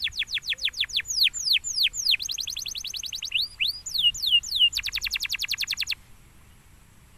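Domestic canary singing: a run of quick downward-sweeping notes, then a fast trill, a few rising-and-falling notes and a second rapid trill. The song stops about a second before the end.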